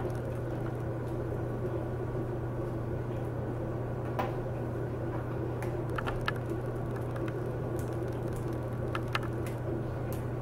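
Steady low electrical hum with a few faint, scattered clicks and taps from handling a laptop's LCD panel and its cable connector.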